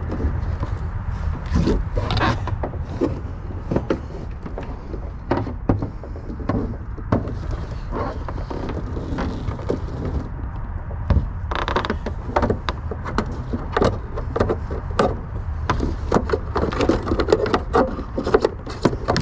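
Irregular clicks, knocks and rustles of hands working a wire and a fishing stick down through a hole in a boat's carpeted battery compartment, with a brief scrape a little past the middle, over a steady low rumble.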